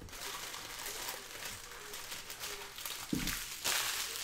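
Trading cards being handled and stacked on a table, a steady rustle of card stock sliding together. A short low thump comes about three seconds in, and a louder rustle near the end.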